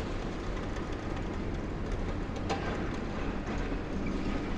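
Steady rumble of a long-reach demolition excavator's engine and hydraulics as its jaws work at concrete, with one sharp knock about two and a half seconds in.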